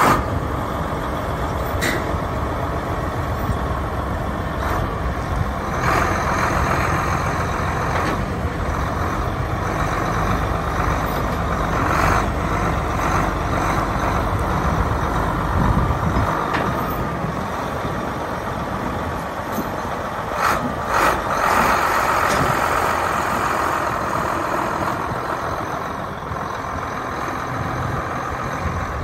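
John Deere 8650 tractor's diesel engine running steadily as the tractor drives slowly, with a few brief sharper sounds scattered through.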